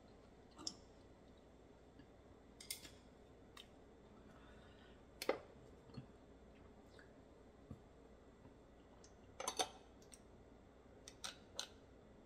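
Sparse light clicks and taps, about a dozen, the loudest about five seconds in and a quick pair later on: wooden chopsticks knocking on oyster shells and a glass as raw oysters are picked up and dipped in chili sauce.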